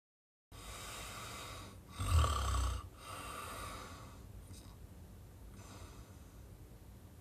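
A sleeper with sleep apnea snoring: a noisy breath, then a loud snort about two seconds in, followed by quieter breaths that fade.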